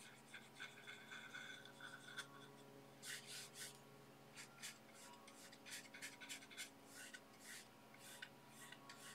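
Faint, irregular scratchy swishes of a hog-bristle filbert brush stroking oil paint onto a smooth aluminium composite panel, over a steady low hum.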